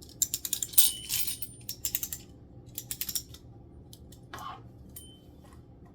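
Key winding the clockwork spring of a vintage tin wind-up toy, a run of small ratcheting clicks in uneven spurts, with a brief faint ting from the toy's tin bell once or twice.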